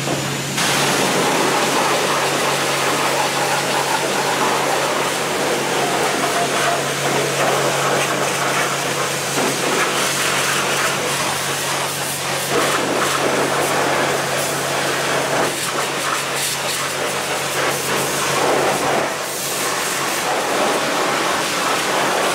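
High-pressure car-wash spray wand blasting water onto a zero-turn mower, a loud steady hiss of spray that starts about half a second in, over a steady low hum.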